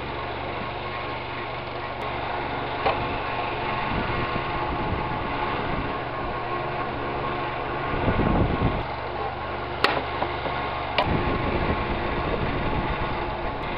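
Pedestal electric fan running with a steady hum, while a knife cuts a raw potato on a plastic cutting board, with a few sharp taps of the blade on the board. A brief low rumble sounds about eight seconds in.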